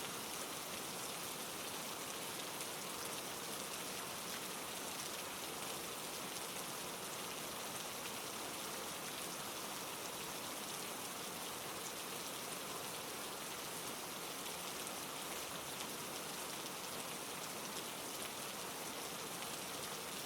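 Steady rain falling, an even hiss of drops on a surface with no thunder or breaks.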